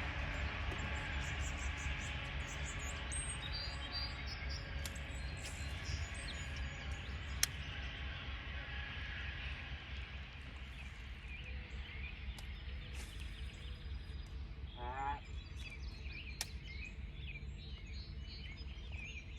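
Boat's electric trolling motor running with a steady low hum that slowly fades, while small birds chirp around the lake. One sharp click about seven seconds in.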